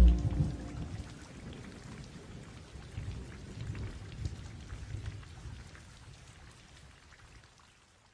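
Recorded rain ambience: a dense patter of drops over a low rumble that swells in the middle, fading out to near silence near the end.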